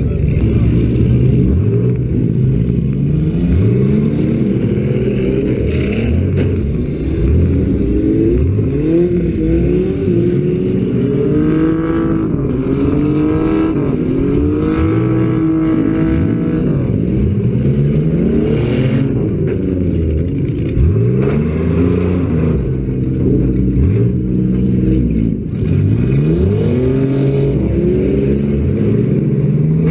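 Several demolition derby car engines revving hard at once, their pitches climbing and dropping over one another without letup.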